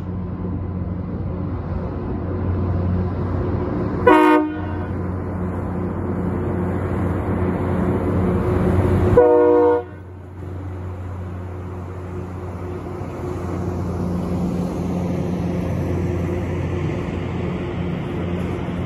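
Loram rail grinder train passing close by, its diesel engines running with a steady drone. Its air horn sounds two short blasts, about four and nine seconds in, the second a little longer and louder.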